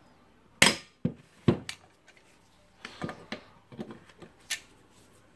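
Pliers clacking and knocking on the steel flange nut of an angle grinder's spindle as they grip, twist and slip. There are a few sharp clacks in the first second and a half, then lighter clatter. The nut is seized too tight to shift.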